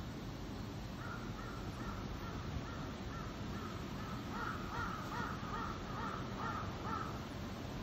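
A crow cawing in a long run of short, evenly spaced caws, louder in the second half, over a steady background hiss.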